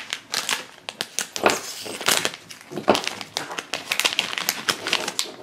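Shiny foil blind-bag packet crinkling in the hands as it is torn open, a run of irregular crackles.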